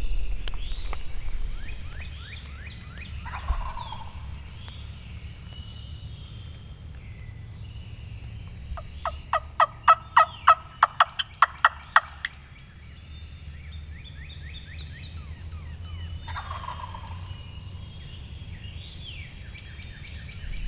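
Wild turkey gobbling from the roost, loudest about halfway through as a rapid run of sharp rattling notes lasting about three seconds, with songbirds chirping throughout.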